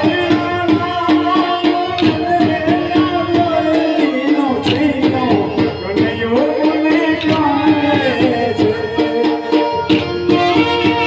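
Gujarati folk music for Maniyaro raas: a hand drum beating a steady, dense rhythm under a held melody line and singing.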